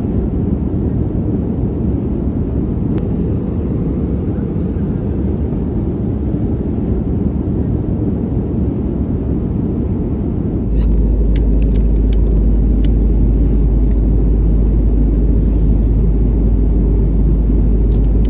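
Steady cabin noise of an Airbus A320 in flight: a constant rumble of airflow and engines. About eleven seconds in, the rumble gets louder and deeper, with a few faint clicks.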